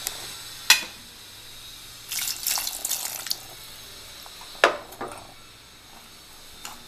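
Water poured into a pressure cooker of raw in-shell peanuts: a splashing pour of about a second and a half, about two seconds in, with a sharp knock before it and another after it.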